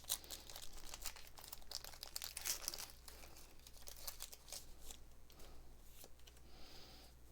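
Foil wrapper of a Pokémon TCG booster pack being torn open and crinkled, with quick crackles that are densest in the first few seconds and then thin out into softer rustling.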